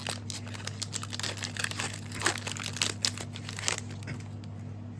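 A card-game booster pack wrapper crinkling and crackling in irregular bursts as it is handled and torn open.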